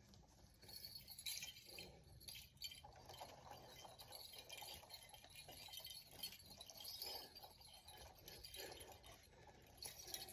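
Near silence, with faint, irregular light clicks and rustles.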